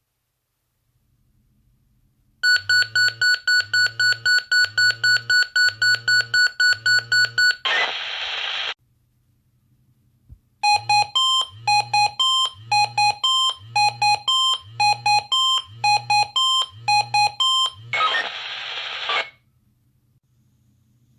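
Swissphone s.QUAD Voice pager sounding test alerts. First comes a rapid run of beeps, the Motorola BMD-style tone, for about five seconds, ending in a second of radio hiss. After a short pause comes the Swissphone standard tone, beeps alternating between two pitches for about seven seconds, again ending in a burst of hiss.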